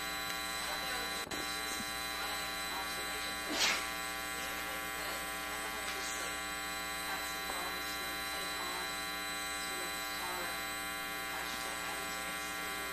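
Steady electrical buzz: mains hum with many overtones in the audio feed, loud enough to bury a faint voice underneath. A brief louder noise cuts through about three and a half seconds in.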